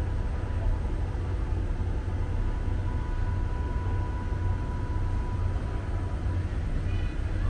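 Steady low rumble of a diesel passenger train, with a faint thin whine over it in the middle.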